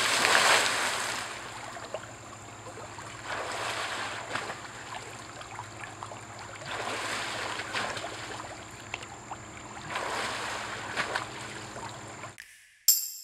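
A diver hits the water of a swimming pool with a big splash, the loudest sound, then the pool water sloshes and laps against the sides in several swells as it settles. The water sound stops abruptly near the end.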